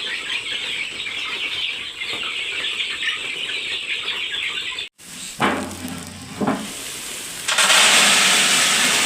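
A flock of chicks peeping busily together. About five seconds in the sound cuts off, and after two short sounds a loud, even hiss starts.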